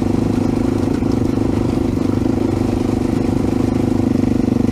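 AJP PR7 single-cylinder motorcycle engine running steadily at a cruise on a dirt track, about 40 km/h, with an even, fast pulsing to its note.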